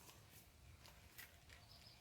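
Near silence: room tone with a few faint, soft clicks, the most distinct about a second in.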